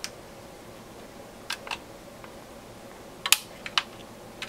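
Scattered sharp clicks and ticks of a pry tool working at a tight clip-on metal shield cover on an oscilloscope's front-end board, about seven in all. The loudest comes a little past three seconds in, among a quick cluster of three.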